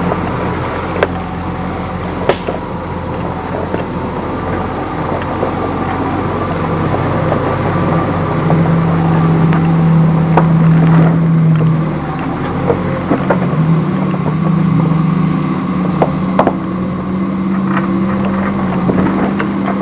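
Nissan Xterra engine running at low speed as the SUV crawls along a rough dirt trail. It grows louder and rises slightly in pitch around the middle. A few sharp knocks come through over it.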